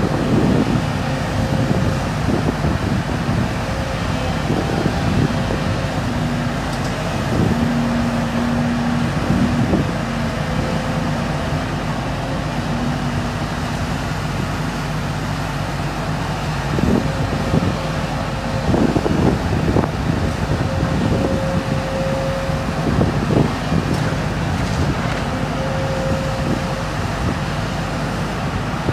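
Volvo tracked excavator running steadily, with a humming tone that comes and goes as it works. Its demolition grab crunches and knocks through burnt brick and timber, with several crashes of falling debris about two thirds of the way in.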